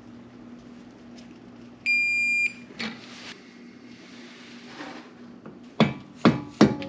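One loud, steady, high electronic beep lasting about half a second, about two seconds in, of the kind a digital torque wrench gives when the bolt reaches its set torque (here 15 N·m on an M7 bolt). A click follows shortly after, and near the end come several sharp metallic knocks, each with a short ringing tail.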